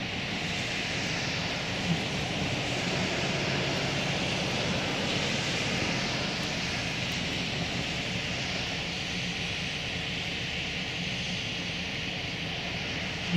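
Steady road noise from inside a moving car on a snowy road: a broad hiss of tyres and air over a low engine hum.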